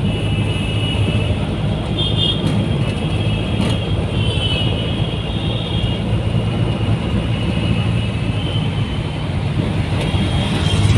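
Auto-rickshaw (tempo) engine running steadily while riding along a city road, heard from inside the open-sided cabin, with road and traffic noise. Brief high-pitched tones sound about two and four seconds in.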